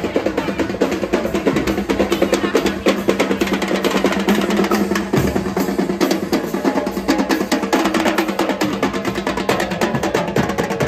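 Marching drumline playing, with rapid strokes on snare and tenor drums over bass drum hits.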